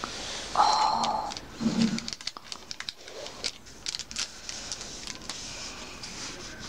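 Yu-Gi-Oh card packs being handled and opened: scattered crinkles and clicks of foil wrappers and cards. About a second in comes a brief higher pitched sound, then a short lower one.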